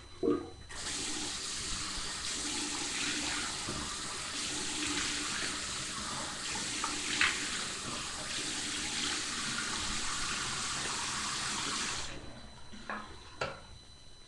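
Sink tap running: a steady rush of water that starts suddenly about a second in and is shut off near the end, with a short knock just before it starts.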